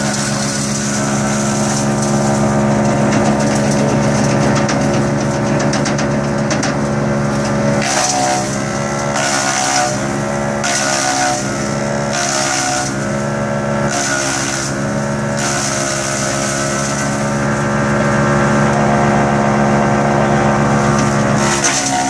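Agrinova Zakandra drum wood chipper, driven by an 18 hp Briggs & Stratton engine, running at full speed and shredding pine branches and needles. For the first several seconds the engine runs steady. From about a third of the way in, its pitch sags and recovers about every second and a half, with a hiss of chipping at each surge, as the load comes and goes.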